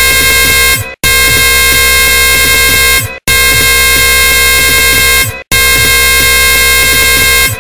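Very loud, harsh electronic noise made of buzzing tones over a dense hiss, played as a loop that drops out briefly about every two seconds, three times.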